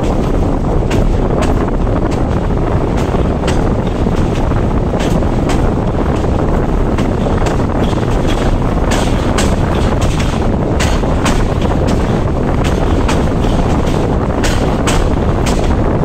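MÁV Bzmot diesel railcar under way, heard from its open side window: a steady rumble and wind rush on the microphone, with repeated sharp clicks, often in close pairs, as the wheels pass over rail joints.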